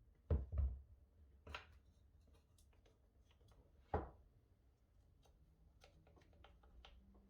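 Sparse knocks and light taps from work being handled at the bench: two close knocks near the start, another about a second and a half in, a sharper knock about four seconds in, and faint ticks between.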